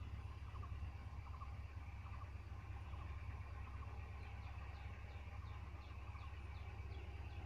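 Birds calling in repeated short notes, a string of brief falling notes in the later part, over a steady low rumble.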